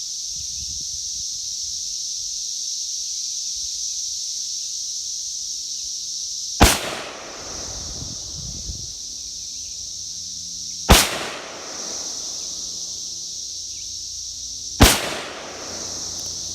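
Three rifle shots from a Smith & Wesson M&P15 AR-15, about four seconds apart, each with a short echo trailing off. A steady high insect chirring runs underneath.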